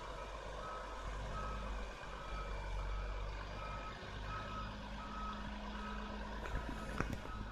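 Reversing alarm of an Alexander Dennis Enviro200 single-deck bus beeping at a steady pace, about three beeps every two seconds, over the low running of its engine: the bus is backing up as it turns around. A few sharp clicks come near the end.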